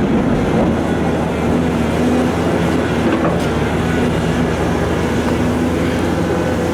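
Heavy diesel quarry machinery, a Volvo EC700 excavator working with a Perlini 655 dump truck, running steadily with a deep engine hum and a few faint knocks.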